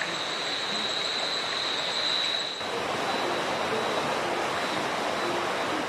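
Steady rush of flowing stream water, with an insect's high, steady trill over it that drops off about two and a half seconds in.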